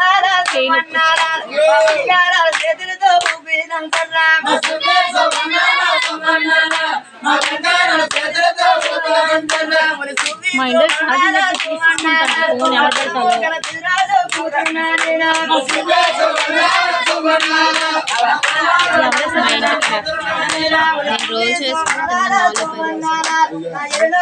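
A group of people singing together over steady rhythmic hand clapping, about two to three claps a second.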